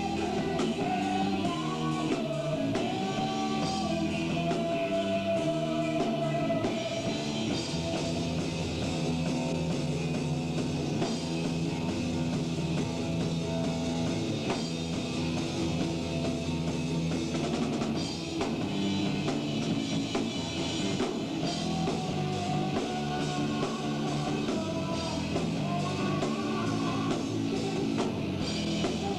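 Rock band playing live, with drum kit and sustained pitched lines running through it.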